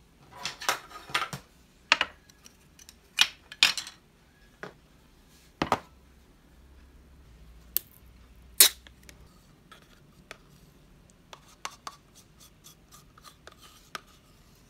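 Scattered sharp taps and clicks, with a few louder knocks, of tableware and food containers being set down and handled on a hard desk: a ceramic ramekin, wooden spoons and a yogurt pack. The knocks come irregularly and thin out to lighter ticks in the second half.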